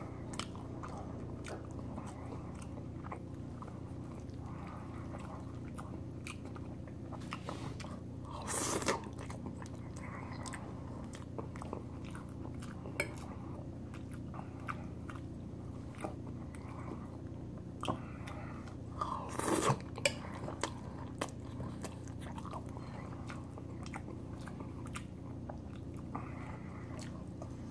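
Close-up chewing and mouth sounds of someone eating chicken alfredo spaghetti, with scattered small clicks and two louder brief sounds about 9 and 19 seconds in, over a steady low hum.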